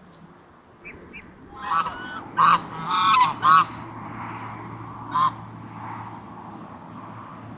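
Domestic waterfowl honking: a run of short, loud calls, most of them bunched together between about two and four seconds in, with one more a little after five seconds.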